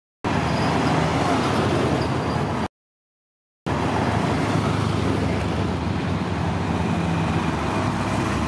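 Old hot rod engines running as open roadsters and a coupe drive slowly past, a steady low rumble with road noise. The sound cuts to dead silence for about a second, about a third of the way through, and then resumes.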